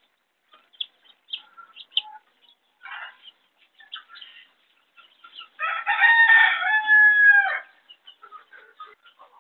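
A rooster crowing once, a single call about two seconds long, starting a little over halfway through and far louder than anything else. Around it, scattered short peeps and clucks from chicks and hens.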